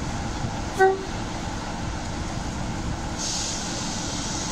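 Class 45 'Peak' diesel locomotive's Sulzer twin-bank engine running with a steady rumble. A short high-pitched tone sounds once, about a second in, and a steady hiss of air starts about three seconds in.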